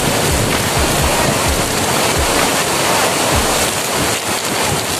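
Large waterfall close by: a loud, steady rush of falling water and spray. Irregular low thumps of wind buffeting the microphone run underneath.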